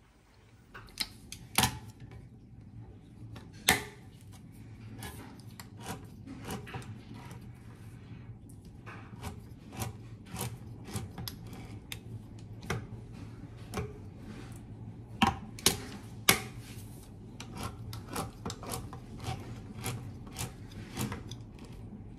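Spoon knocking and scraping in a pan while stirring a thick condensed-milk sweet mixture: irregular sharp clicks and knocks, a few much louder, over a low steady hum.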